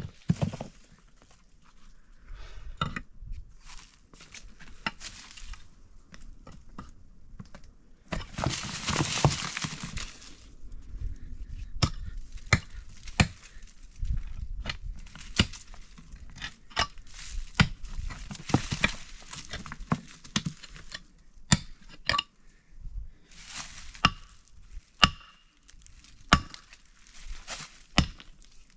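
Irregular sharp chopping knocks and light clinks of hand food preparation, with a longer hissing rustle about eight seconds in and shorter rustles between the strokes.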